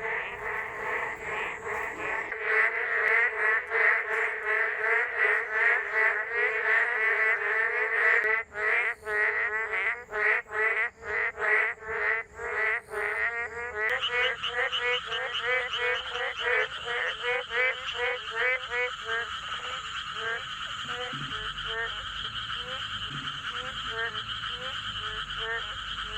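Chorus of boreal digging frogs (Kaloula borealis), many overlapping short croaking calls repeated rapidly. About fourteen seconds in the chorus changes to more spaced calls under a higher, steadier ringing layer.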